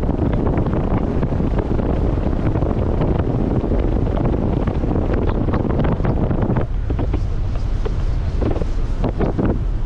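Wind buffeting a GoPro's microphone: a loud, steady rumble with scattered crackles and clicks. About two-thirds of the way in the hiss thins out, leaving the low rumble and the crackles.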